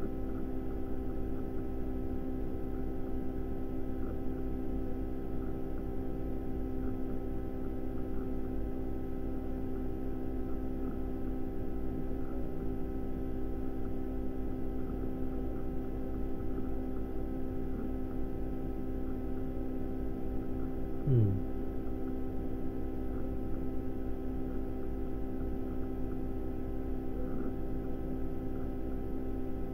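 Steady electrical hum, several steady tones over a low rumble. About 21 seconds in, a short tone slides down in pitch.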